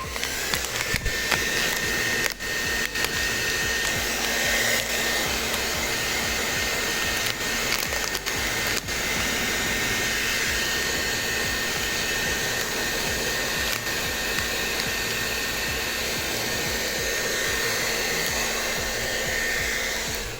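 Heat gun blowing hot air onto vinyl wrap film to soften it for stretching. A steady rush of air with a thin high whine holds for about twenty seconds, then cuts off.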